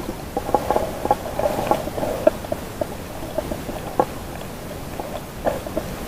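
Underwater sound picked up by a submerged camera: irregular clicks and gurgling bubble blips from water moving around the camera. They come in clusters that thin out midway and pick up again near the end.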